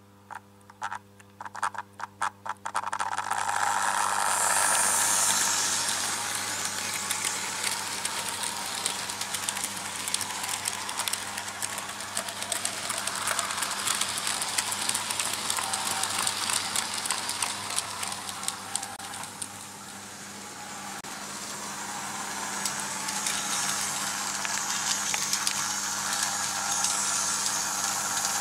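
Märklin H0 model freight train running on pressed-steel M-track, its wheels giving a steady rolling rattle full of fast clicks over the rail joints, with a steady low hum underneath. In the first few seconds there are a handful of separate clicks before the running noise swells up.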